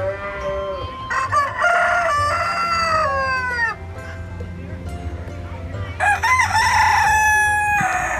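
Rooster crowing: a short call at the start, then a long loud crow from about a second in that falls in pitch at its end, and a second crow near the end.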